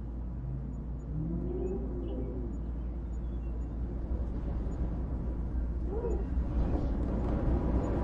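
Howling wind: a low rumble with moaning tones that waver up and down in pitch, one sharper rise and fall about six seconds in, growing louder toward the end.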